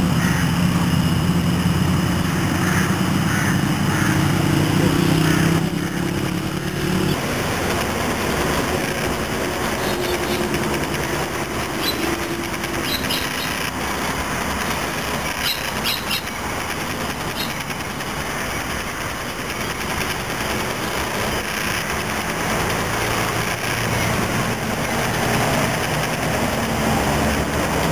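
A vehicle engine running steadily, its hum cutting off about six or seven seconds in. After that, a steady background hiss with a few short, high bird chirps.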